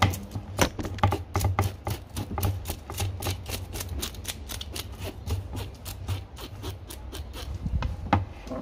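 Knife blade scraping scales off a mullet on a plastic cutting board: quick repeated scraping strokes, about four or five a second.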